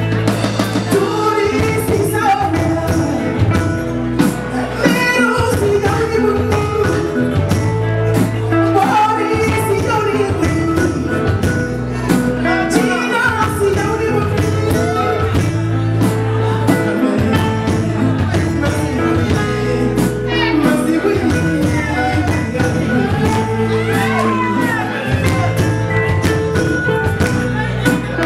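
Live Malian band music: a woman sings the lead melody over kora, a steady repeating bass line and driving percussion with a jingling rhythm.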